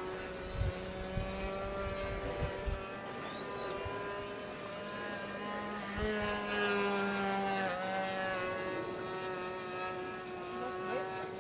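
Radio-controlled model airplane's motor and propeller running with a steady whine; the pitch steps up about six seconds in and dips briefly near eight seconds. Low thumps of wind buffet the microphone in the first few seconds.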